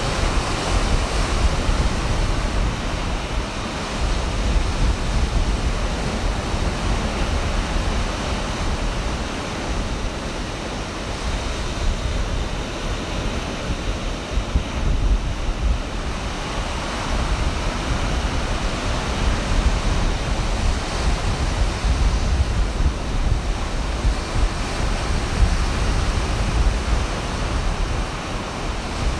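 Ocean surf breaking and washing ashore in a continuous rush of waves, with wind buffeting the microphone.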